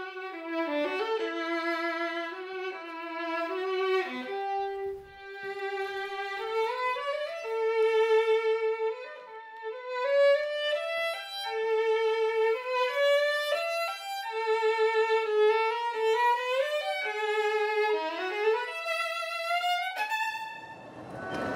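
A 1770 Joseph Gagliano violin played solo: a bowed melody of held notes with vibrato. Orchestral music comes in right at the end.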